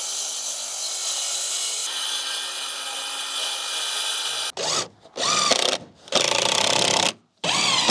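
DeWalt cordless circular saw running steadily while ripping a vented OSB soffit panel. After about four and a half seconds it stops abruptly, and a cordless drill drives screws in three short runs.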